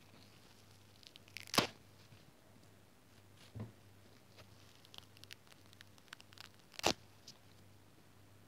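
Foam bath sponge being torn apart close to the microphone: soft crackling, with two sharp, louder rips, one about one and a half seconds in and one about seven seconds in.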